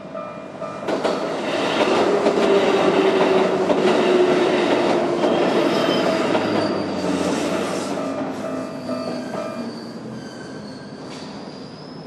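Keikyu electric train running over a level crossing: the noise of its wheels on the rails rises sharply about a second in and fades away over the last few seconds, with high wheel squeals along the way. The crossing's electronic warning bell keeps ringing in a steady repeating pattern underneath until near the end.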